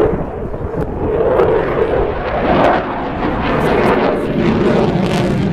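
Jet noise from a Eurofighter Typhoon's twin EJ200 turbofans during a display flight: a loud, continuous rumble that swells and eases as the fighter passes.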